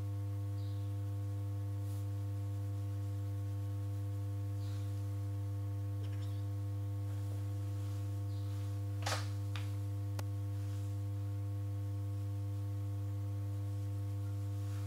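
Steady electrical mains hum: a constant low drone with fainter steady higher tones over it, and two small clicks past the middle.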